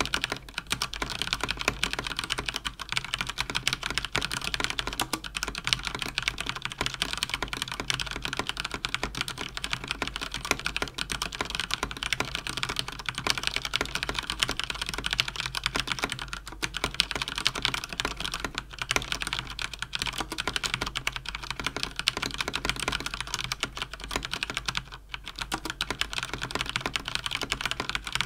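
Fast continuous typing on a Cougar Attack X3 RGB mechanical keyboard with Cherry MX Speed linear switches, a dense clatter of key clicks with a few short pauses.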